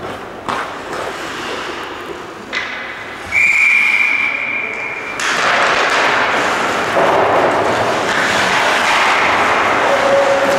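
A couple of sharp knocks, then a referee's whistle blown once in a single steady high note for about two seconds. After it a loud, even rushing noise starts and holds.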